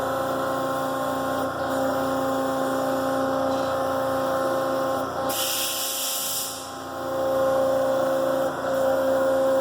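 K.O. Leematic surface grinder running, a steady mechanical hum with several fixed tones. About five seconds in, a high hiss cuts in for over a second and then stops.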